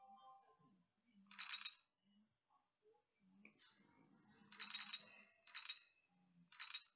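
888poker client sound effects: short clatters of poker chips as bets go into the pot, four times, about a second in and three more in quick succession near the end.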